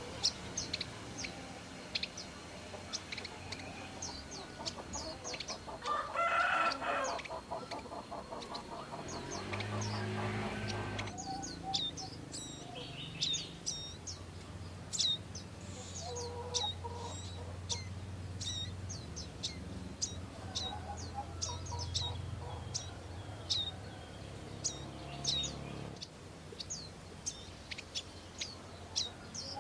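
Prinia (prenjak) giving short, sharp high chirps, one or two a second, over and over. Domestic chickens can be heard in the background: a rooster crows about six seconds in, and hens cluck now and then.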